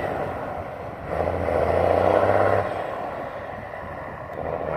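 Diesel engine of a loaded grain truck pulling away, coming on in two surges with a drop between them.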